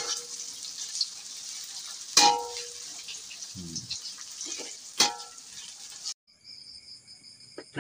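Banana-stem slices deep-frying in hot oil in a metal wok, a steady sizzle as a spatula stirs them, with two sharp clangs of the spatula against the wok, the first about two seconds in and the louder. The sizzle cuts off about six seconds in.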